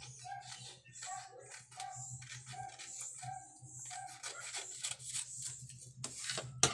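Background music with a short note repeating about three times a second, over crackling of paper and sticky tape being handled, with a loud sharp crackle at the very end.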